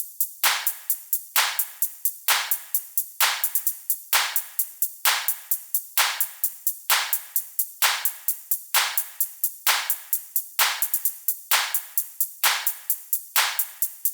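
Electronic club music intro: a fast, steady hi-hat pattern with a noise hit that sweeps down about once a second, and no bass line yet.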